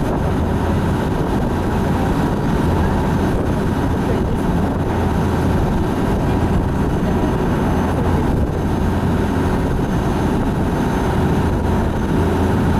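Excursion boat's engine running steadily under way: a continuous low drone with a steady rushing noise over it.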